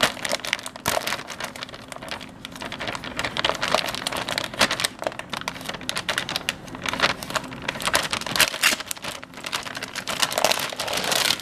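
Scissors snipping along the sealed top of a thick plastic bag, with the plastic crinkling as it is held and cut: an irregular run of sharp clicks and rustles.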